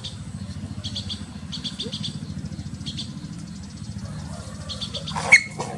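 Small birds chirping in short repeated bursts over a steady low hum, with one sudden loud sharp sound about five seconds in.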